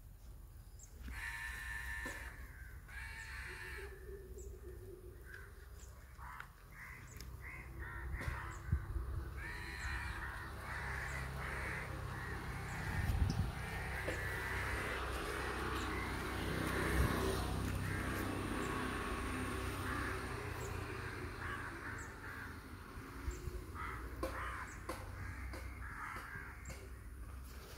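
Crows cawing over and over, most densely in the middle stretch, with a low rumble underneath.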